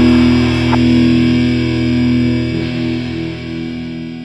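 Music: a held, distorted electric-guitar chord ringing out and slowly fading.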